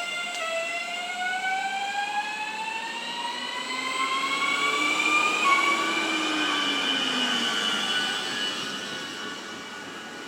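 Electric train's traction motors whining as it pulls away: a stack of tones rising steadily in pitch over several seconds, loudest about halfway, then fading as the train draws off.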